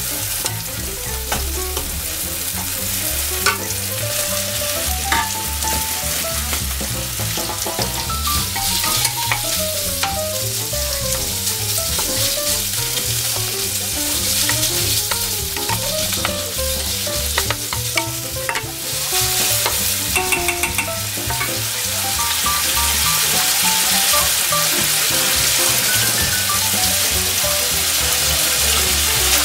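Diced pork belly and sliced green onions sizzling steadily in a nonstick frying pan, stirred with a wooden spatula that taps and scrapes against the pan.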